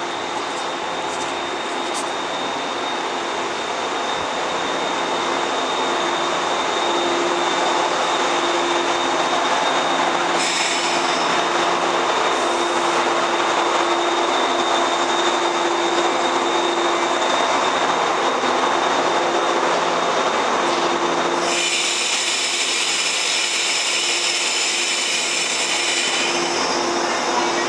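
Electric train at a station platform: a steady mechanical hum with a constant tone, slowly growing louder. About ten seconds in there is a short hiss, and from about 21 seconds in a louder hiss runs for about five seconds.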